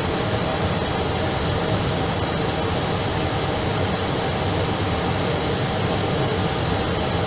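Steady rush and low hum of an Airbus airliner's engines and airflow on approach, unchanging throughout.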